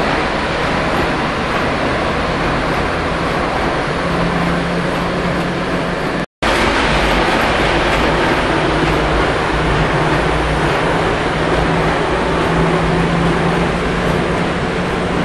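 Lionel O gauge model trains running on the layout: a steady, loud rumble of motors and wheels on the track with a faint hum under it. The sound drops out for an instant about six seconds in.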